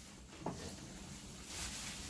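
Faint kitchen handling noise: a single light knock about half a second in, then low rustling.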